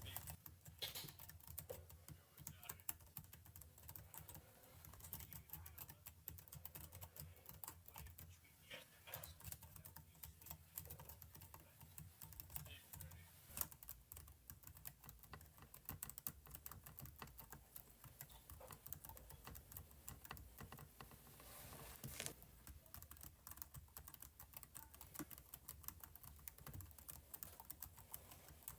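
Faint, quick, irregular clicking of computer keyboard keys being typed.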